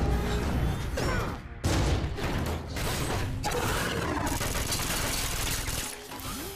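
Film battle sound effects for a dropship crash: dense mechanical clatter and crashing metal, with bursts of gunfire. There is a sudden loud crash about one and a half seconds in.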